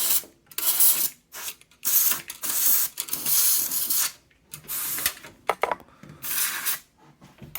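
Can of compressed air blowing dust out of a computer case in a string of short hissing blasts, about one a second. The can is one its user thinks may be nearly empty.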